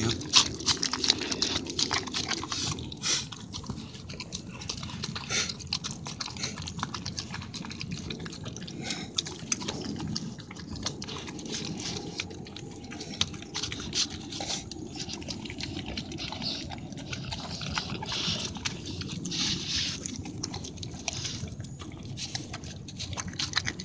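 A dog eating tamales and eggs off a paper plate: continuous chewing with many small sharp clicks, a little louder in the first couple of seconds.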